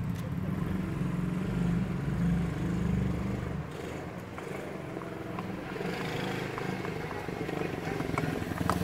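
A 110cc quad bike's small single-cylinder four-stroke engine running as it is ridden. It drops off a little around the middle and grows louder near the end as the quad comes toward the microphone.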